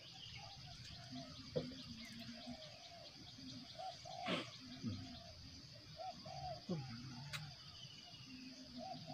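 Outdoor dawn chorus: a steady high-pitched insect trill, with many short bird calls repeating over it and a few faint clicks.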